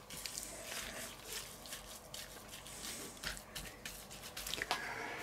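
Gloved hands squishing and turning diced raw chicken in a stainless steel bowl to work in the seasoning: faint wet squelches and rustles with a few small clicks.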